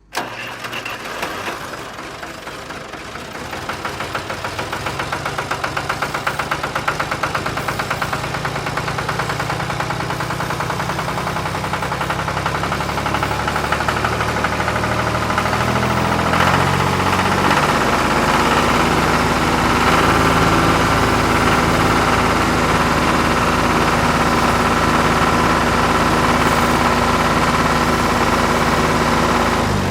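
Engine sound of an RC construction model running steadily with a fast, even knocking beat. About halfway through it climbs, with a brief rising whine, and then holds louder at a higher pitch.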